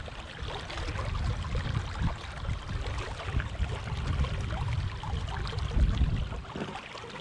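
Flowing river water, a steady rushing with no breaks.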